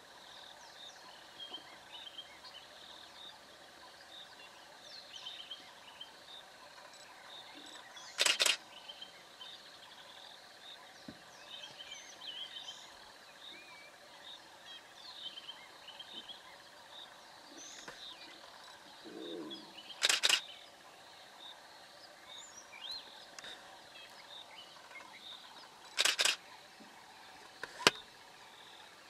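Camera shutter clicks in short rapid bursts, three times well apart, with a single click near the end, over faint bird calls and a steady hum.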